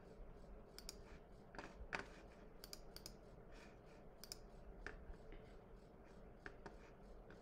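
Near silence: quiet room tone with faint, scattered clicks at irregular intervals.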